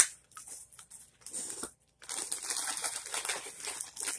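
Plastic wax-melt packaging being handled: a sharp click at the start, a few light clicks, then about two seconds of continuous rustling.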